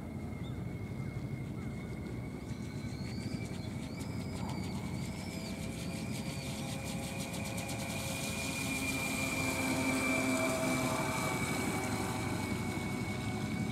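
Brushless electric motor of a 1 m scale RC cruiser running at speed: a steady high whine that grows louder as the boat comes close, about eight seconds in, then eases slightly.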